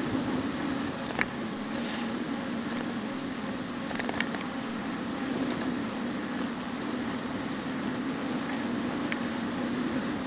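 Steady rushing noise of a bicycle riding along a paved trail: wind over the microphone and tyres rolling on the pavement, with a few sharp clicks about a second in and around four seconds in.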